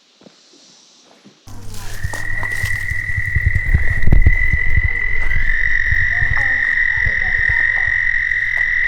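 Long, steady, high-pitched frog trill starting abruptly about a second and a half in, joined by a second, slightly higher trill about halfway through. A low, uneven rumble runs beneath.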